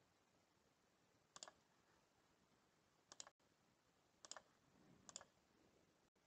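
Four faint computer mouse clicks spaced about a second apart, each a quick press-and-release pair.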